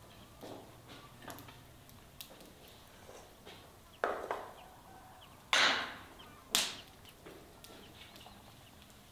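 Ceramic plates and bowls being set down and stacked on a countertop: a few faint knocks, then three louder clinks about four, five and a half and six and a half seconds in.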